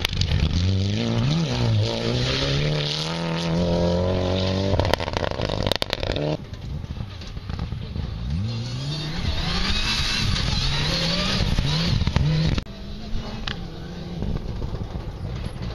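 Rally car engines revving hard, the pitch climbing and dropping again and again as the cars accelerate and shift gear. About six seconds in and again near the end the sound changes abruptly, and the last part is quieter.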